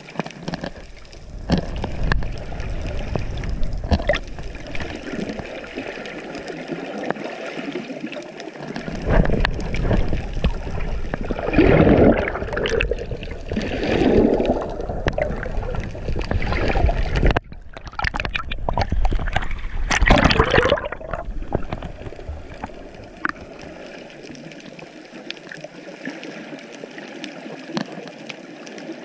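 Water sound picked up through a GoPro's waterproof housing while swimming: a muffled gurgling and sloshing with scattered small clicks. It grows louder and fuller for a stretch in the middle.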